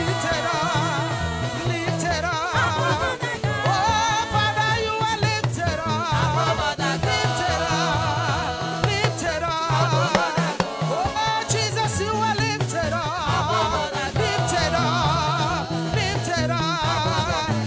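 Live gospel praise-and-worship music: voices singing with wavering, ornamented pitch over a steady bass line and drums.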